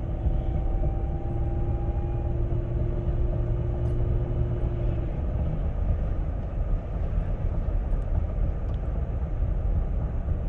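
2007 Dodge Charger SXT with its 3.5L V6 running, a steady rumble with a thin whine at two pitches on top that fades out about halfway through. The owner has not found the cause of the whine; it came on after a used NAG1 transmission, a rebuilt alternator and a new driveshaft center support bearing were fitted.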